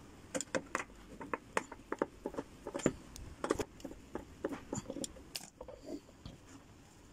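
Irregular small clicks and taps of a hand screwdriver working on the screws and metal frame of a flat-pack computer table.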